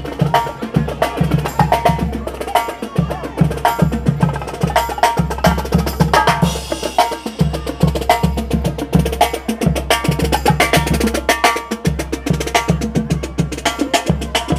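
Marching band playing as it parades past, with snare and bass drums keeping a steady beat under saxophones and brass.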